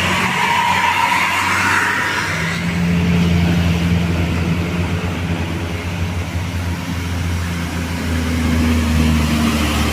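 Heavy vehicle engine, most likely a tour bus, running as a steady low drone that rises a little in pitch near the end. A higher-pitched sound fades out over the first two seconds.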